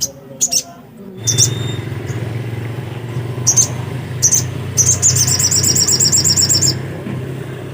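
Little spiderhunter (sogok ontong) calling: short, sharp, high chirps, then a fast trill of about two seconds near the end. Under it, a steady low motor rumble from a vehicle starts about a second in.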